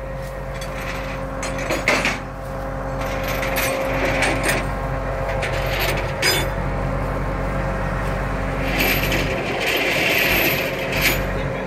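A steady, low engine hum runs throughout, with scattered knocks and clicks over it.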